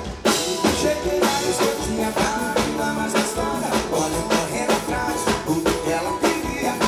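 Live sertanejo band playing a fast song: a drum kit keeps a steady beat under electric guitar and bass, with male vocals from the duo at the microphones.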